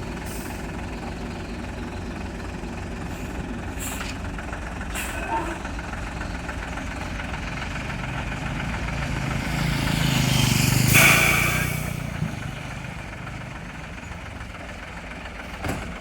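A truck's diesel engine running steadily. About ten seconds in, the sound swells and fades over a few seconds into a rushing hiss, like a vehicle passing close by.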